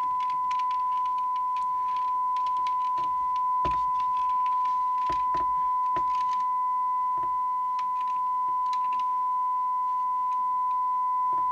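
A steady single-pitch test tone from a Midland 76-900 CB base station's receiver audio, with a faint overtone above it: the demodulated modulation of the signal generator's test signal, peaked for maximum audio. Scattered clicks and knocks from handling sound over it.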